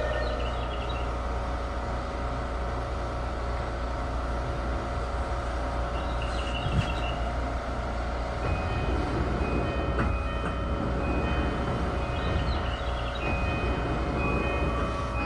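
Tokyu 2020 series train's Mitsubishi full-SiC MOSFET VVVF inverter and traction motors running loudly, a steady hum of several tones over the low rumble of the wheels on the rails, heard from inside the car. Higher tones come and go in the second half.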